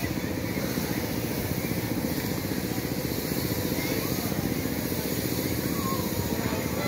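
Miniature amusement-park train's engine running steadily as it travels round its track, a dense rapid low pulsing.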